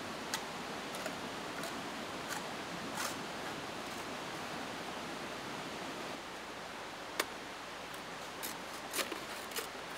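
Machete blade knocking and cutting into a green bamboo pole: sharp short knocks, about one every half second over the first three seconds, then a few more near the end, over a steady rushing hiss.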